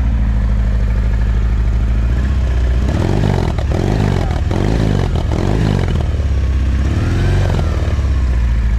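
Harley-Davidson V-twin with a Bassani exhaust idling, then given a quick series of throttle blips from about three seconds in, and one more rev near the end.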